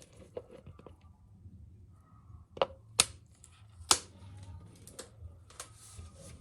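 Light clicks and taps of hard objects being handled, with three sharp clacks in the middle: two close together and a third about a second later.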